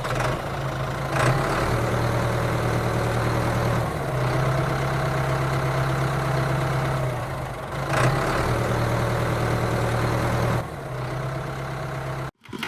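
Tractor engine running steadily at a low pitch, shifting slightly in level a few times, then cutting out for a moment just before the end.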